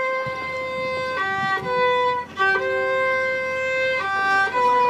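Solo violin playing slow, held bowed notes, switching between a higher and a lower pitch and sometimes sounding both at once. There is a brief break in the bowing about two seconds in.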